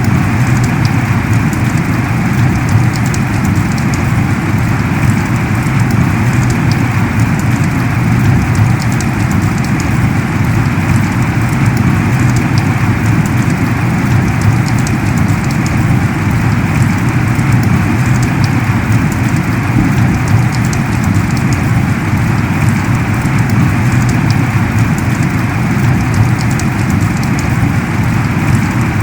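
Heavy rain falling steadily: a dense, even hiss with many sharp drop hits ticking through it.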